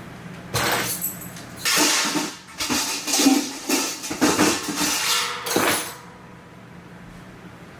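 Metal pots and pans banged and clattered together in a run of loud, noisy bursts starting about half a second in and stopping about six seconds in.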